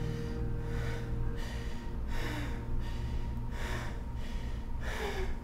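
A person's heavy breathing: sharp, gasping breaths roughly once or twice a second over a low steady hum.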